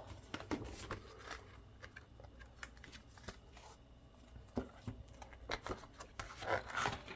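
Paper calendar pages being turned and handled: soft rustles and light taps, faint at first and more frequent in the second half.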